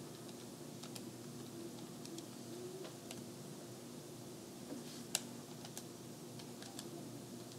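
A few faint, scattered clicks of calculator buttons being pressed, the sharpest about five seconds in, over a low steady hum.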